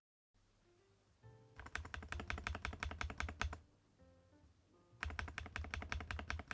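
Typing on a Weikav Record Alice V2 mechanical keyboard with an aluminium case and gasket mount: two bursts of rapid keystrokes, about nine a second, over soft background music.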